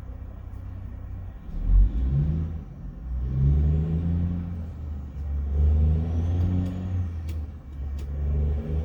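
A car running and driving off, heard from inside the cabin: a low engine and road rumble whose pitch shifts as it pulls away, with a heavy thump about two seconds in.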